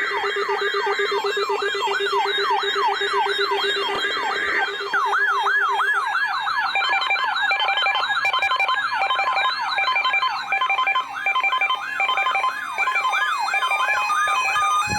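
Several electronic sirens sounding together in a fast yelp, each rising and falling about three to four times a second, over steady tones. From about six seconds in, rapid beeping alarm tones join the sirens.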